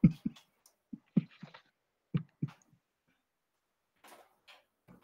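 A man's stifled laughter: short, muffled bursts forced out through a closed mouth and nose, in three quick clusters over the first couple of seconds, then a few faint breaths near the end.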